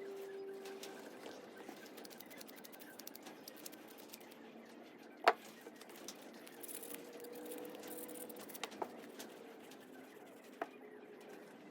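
Light clicking and rubbing from dirt-bike parts being handled and cleaned, with one sharp knock about five seconds in and a short hiss a little after.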